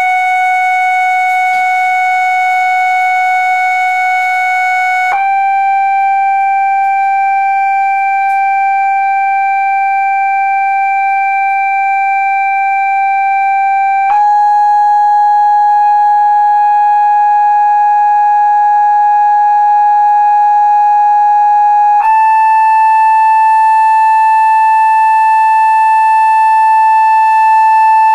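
Loud steady sine-wave test tone played through a cymatics speaker rig, held at one pitch and then stepping up a little three times, about five, fourteen and twenty-two seconds in. It is not quite pure: overtones ring above the main note.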